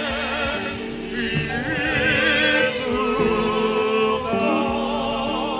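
Singing with a strong vibrato over sustained keyboard chords: church music between the scripture readings.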